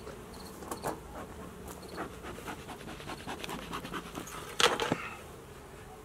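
Honeybees buzzing around the hives, a steady low hum, with scattered clicks and rustles and a louder short rush of air just before five seconds in.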